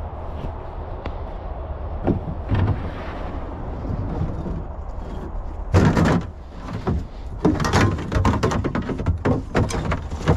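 Hard plastic kayak being slid out of a pickup truck bed and set down on the ground: a loud scrape and thump about halfway through, then a run of clattering knocks as the paddle is handled against the hull.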